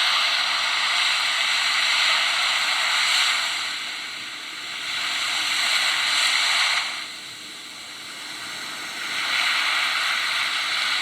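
A loud rushing hiss with no low rumble, dipping about four seconds in and again from about seven to nine seconds in before swelling back.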